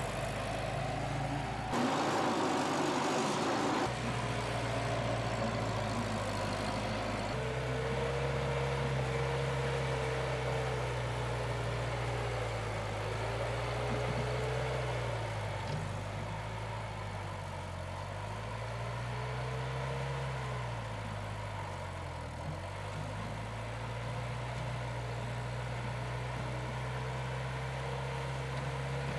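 Bobcat 610 skid steer loader's engine running, its pitch dipping and rising several times as the revs change while the machine is worked. A brief rush of noise comes about two seconds in.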